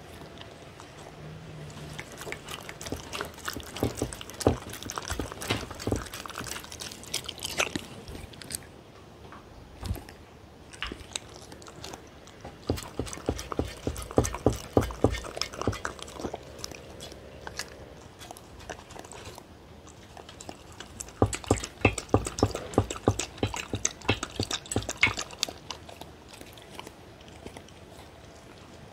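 A dog licking and chewing food from a stainless steel divided tray, in three bouts of quick wet clicks with quieter pauses between.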